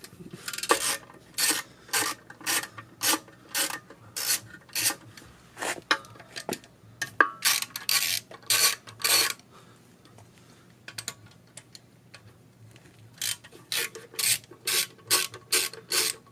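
Hand ratchet wrench clicking through repeated back-strokes, about two a second, as tight bolts are worked loose by hand. The strokes stop for about three seconds midway, then start again.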